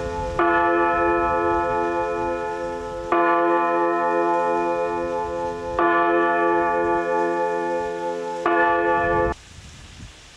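A single church bell struck slowly, four strokes about two and a half seconds apart, each left ringing until the next. The ringing cuts off suddenly near the end.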